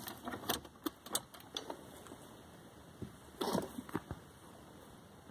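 Light plastic clicks and rattles of a USB car charger plug being pushed into a cigarette lighter power outlet and seated. There are a few separate clicks in the first couple of seconds and a short flurry of clicking and rubbing about three and a half seconds in.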